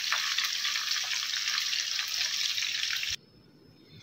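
Chicken pakora deep-frying in hot oil: steady sizzling with fine crackling, which cuts off suddenly about three seconds in.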